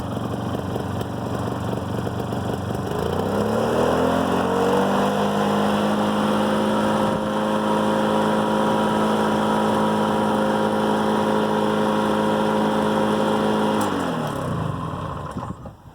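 Toro 16585's Suzuki two-stroke engine running at idle, then speeding up about three seconds in and holding a steady higher speed. It slows back down near the end and the sound dies away as the engine stops.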